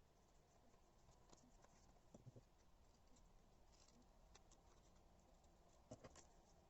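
Faint, sparse ticks and light rustles of hands winding and handling washi tape, with a couple of slightly louder clicks about two seconds in and near the end.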